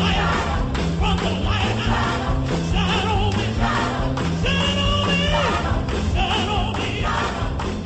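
Lively gospel music: a choir and congregation singing over a steady beat and walking bass line, with one long wavering high note a little past the middle.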